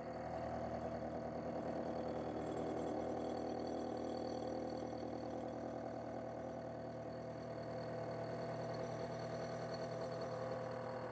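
Small metal lathe running steadily with an even motor hum while a cutting pass is fed across a sledgehammer face; the hardened steel face barely cuts.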